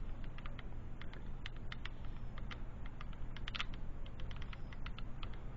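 Irregular light clicks, several a second, over a steady low hum.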